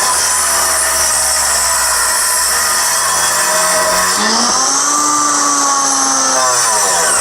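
Brushed commutator electric motor running fast with a whine over brush hiss; its pitch sags and climbs back about four seconds in, and dips again near the end as the speed changes.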